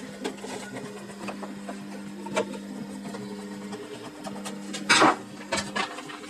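Hand tools at work on a chainsaw being taken apart by hand: small clicks, then a short loud scrape and rattle just before five seconds in. A faint steady hum runs underneath and breaks off for a moment about four seconds in.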